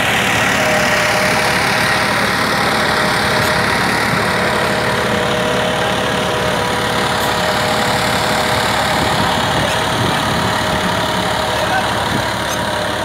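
Massey Ferguson 9500 tractor's diesel engine running steadily at a constant speed, with a steady whine held at one pitch over the engine noise.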